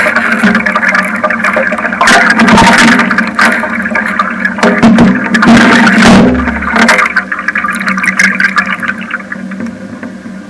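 Water churning and gurgling picked up by a homemade piezo hydrophone with a preamplifier, full of irregular knocks and clicks over a steady low hum, growing quieter near the end.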